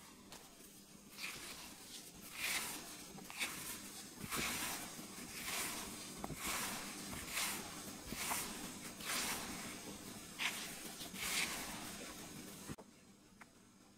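Fingertips rubbing butter into flour in a plastic mixing bowl for scone dough: a soft, rustling swish about once a second, stopping suddenly near the end.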